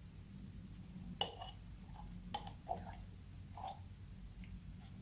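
Clear slime pouring slowly from a bottle into a glass bowl of water, giving a handful of faint sticky clicks and small plops over a low steady hum.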